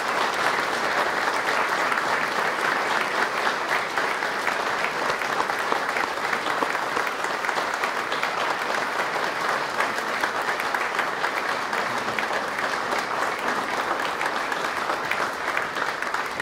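Large audience applauding: a long, steady round of many hands clapping.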